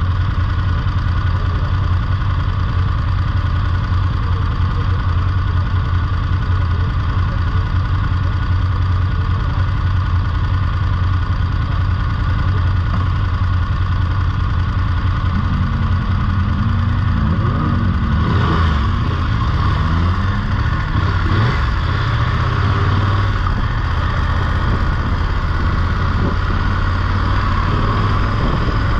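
BMW F850GS parallel-twin engine running steadily, with a second engine note rising and falling briefly about two-thirds of the way through.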